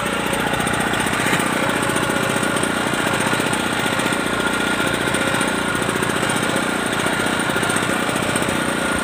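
A small engine running steadily at an even speed, with a fast regular chugging pulse.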